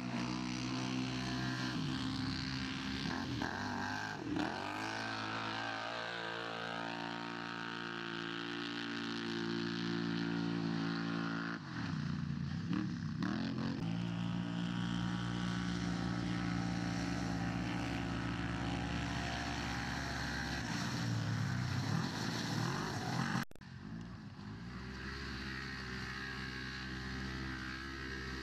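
Side-by-side UTV engines running hard on a dirt course, the engine pitch falling and rising again several times as the drivers lift off and accelerate. About two-thirds of the way through, the sound breaks off abruptly and resumes quieter.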